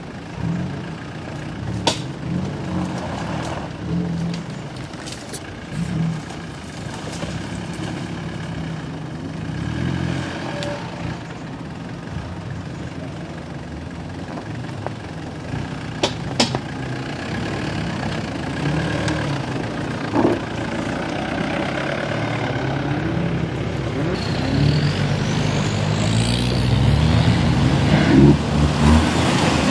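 Off-road SUV engines at work: a Mitsubishi Pajero's engine running at low revs as it crawls down a dirt slope, with a few sharp knocks from the vehicle; in the last few seconds a second SUV's engine revs up and gets louder as it pushes through deep mud.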